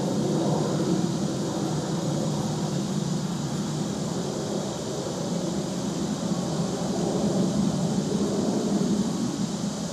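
Steady background rumble with an even high hiss above it.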